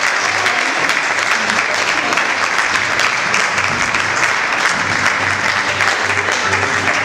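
Audience applause: many hands clapping at once in a dense, steady patter.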